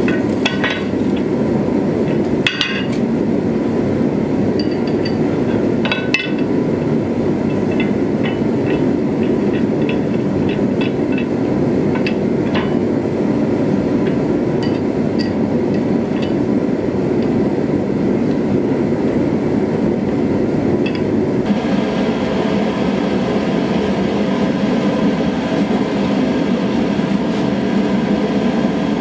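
Steel tooling and tongs clinking and knocking as they are set under the die of a forging press, over a steady roar of shop machinery. About two-thirds of the way through the roar changes and turns brighter and hissier as the blower-fed gas forge takes over.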